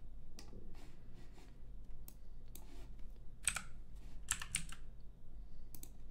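Computer keyboard keystrokes and mouse clicks: irregular single taps, with a quick flurry of several a little after four seconds in.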